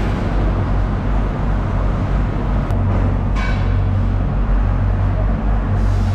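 Steady low machine hum under the general noise of a fish market hall, with a brief higher squeal or call about three and a half seconds in.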